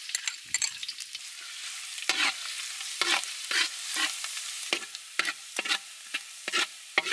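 Minced garlic sizzling in hot oil in a metal wok, with a metal spatula scraping and clanking against the pan at about two strokes a second as it is stirred.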